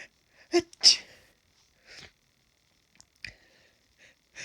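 A person with hay fever sneezes once about a second in: a short voiced intake, then the explosive sneeze. A few short sniffs follow.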